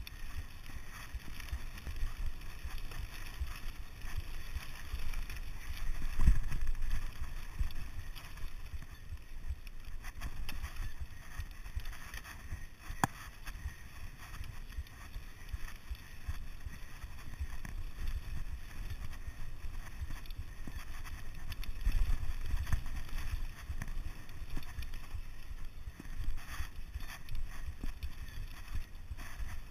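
Mountain bike rolling down a rough dirt and gravel track: a steady low rumble of tyre and wind noise, with a constant rattle of small knocks from the bike over stones. There are heavier jolts about six seconds in and again around twenty-two seconds in.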